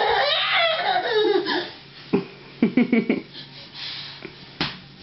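Laughter: a high, squealing giggle in the first second and a half, then a quick run of short laughs about two and a half seconds in.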